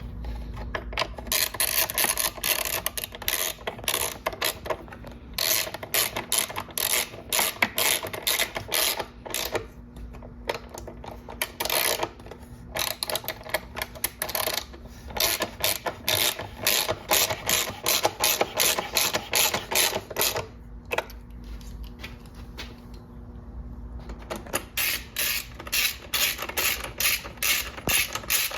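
A ratcheting wrench clicking in fast runs as it drives bolts into the motorcycle's fairing plastics, with a few short pauses between runs.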